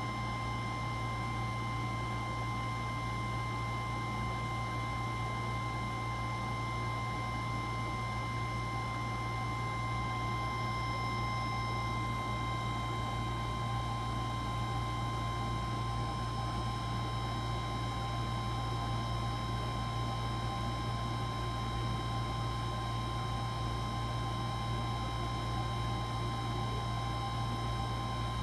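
A steady low electrical or mechanical hum with a few faint, high, steady whining tones over a light hiss, unchanging throughout.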